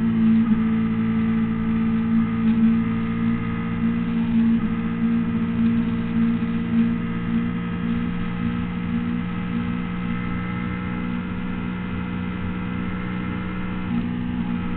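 Honda CBR600RR inline-four engine running at a steady pitch under power down a straight, heard from on board over rushing wind noise.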